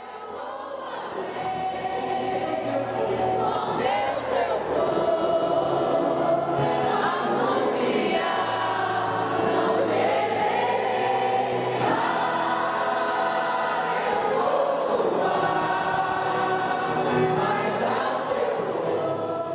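Choir singing slow, sustained music with long-held chords, fading in over the first couple of seconds.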